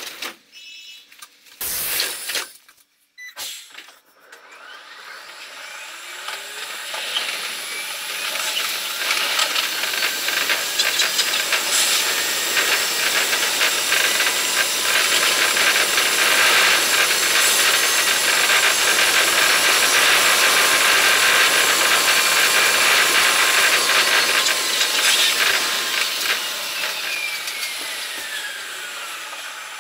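Running noise of an electric commuter train heard from the driver's cab, played five times fast. A few sharp knocks come in the first seconds, then a hissing rush swells as the train gathers speed, with a whine rising in pitch. Near the end the rush fades and a whine falls in pitch as the train brakes into the next station.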